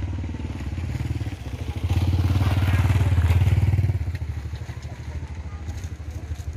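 An engine running with a steady, pulsing low hum, swelling louder for about two seconds in the middle before settling back.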